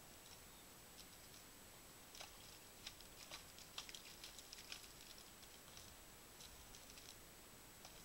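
Faint steady hiss from a trail camera's microphone with a thin high whine, and a cluster of soft, irregular clicks and patters about two to five seconds in as a sika stag feeds with its head down close to the camera.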